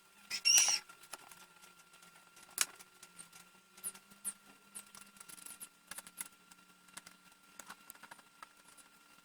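Light clicks and scrapes of small tools and plastic parts being handled during a speaker repair, with one louder squeaky scrape about half a second in and a sharp click near three seconds, over a faint steady hum.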